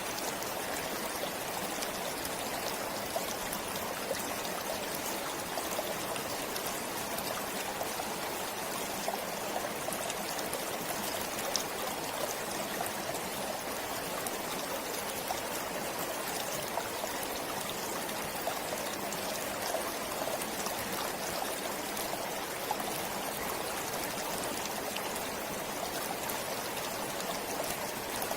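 A forest stream flowing steadily, with a continuous babble of water and small trickling splashes.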